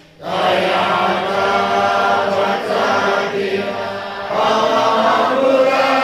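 A large congregation chanting Buddhist prayers in unison. The chant breaks off briefly at the start, resumes, and eases a little about four seconds in before swelling again.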